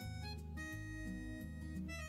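Instrumental background music: held notes over a bass line that steps between pitches.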